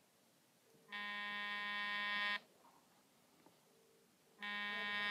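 Samsung smartphone ringing for an incoming call: a steady, buzzy ringtone sounds for about a second and a half, stops for two seconds, then starts again near the end.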